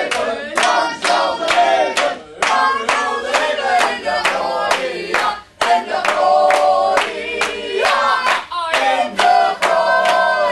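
A small mixed group of men and women singing together while clapping their hands on a steady beat, about three claps a second, with a short break about five and a half seconds in.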